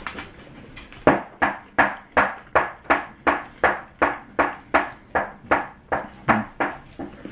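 A person chewing a mouthful of a pot roast sandwich, wet chewing sounds in a steady rhythm of about three a second, starting about a second in.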